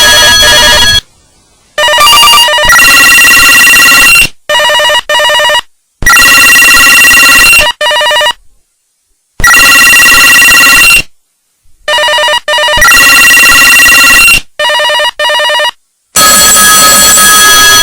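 Electronic phone ringtones playing loudly: a string of short melodic tone patterns, each cutting off abruptly, with brief silences between them.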